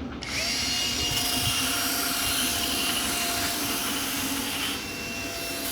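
Small electric grinder motor, the kind used to cut and polish agate stones, spinning up about a quarter of a second in and then running with a steady whine; it gets a little quieter near the end.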